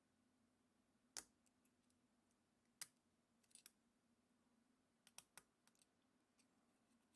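Faint, irregular metallic clicks of a lock-picking tool working the pin tumblers of an all-brass American padlock, some single and some in quick pairs, over a faint steady hum.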